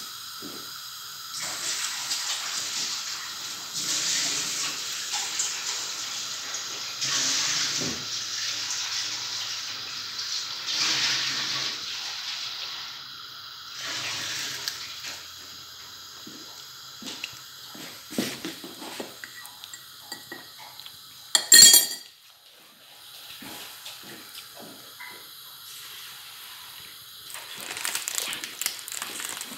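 Food bubbling and sizzling in a covered aluminium pot on a gas burner, the sound swelling and easing in waves through the first half. A single sharp clink stands out about two thirds of the way through.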